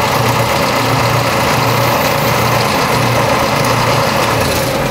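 Steady, loud hum and hiss of workshop machinery running, with a low hum that rises and falls slightly.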